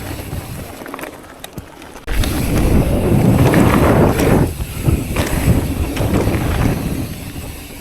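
Wind buffeting a chest-mounted camera's microphone while a mountain bike is ridden down a trail, mixed with tyre and trail rumble. The noise fades for a moment and surges back abruptly about two seconds in.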